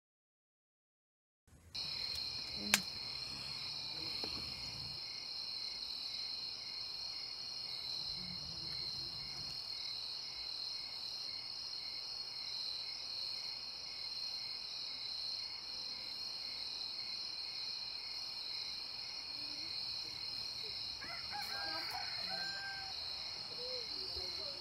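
Night chorus of crickets and other insects trilling steadily in several high overlapping tones, with a slower regular pulse of about two beats a second. It starts about a second and a half in.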